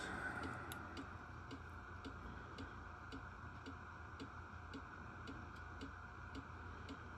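Faint, regular ticking at about three ticks a second, steady throughout, over a low room hum.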